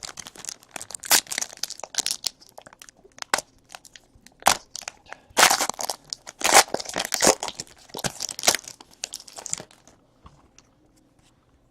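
Crinkling and rustling of trading-card packaging and cards being handled, a run of irregular crackles that dies away about ten seconds in.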